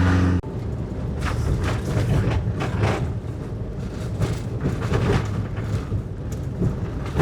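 Vehicle driving slowly over a rough, corrugated dirt road, heard from inside: a steady low rumble with frequent knocks and rattles from the bumps.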